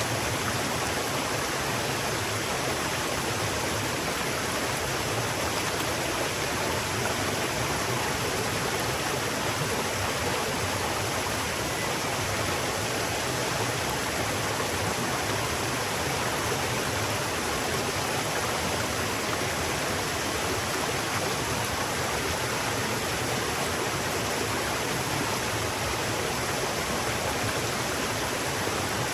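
River water flowing, a steady even rush with no changes.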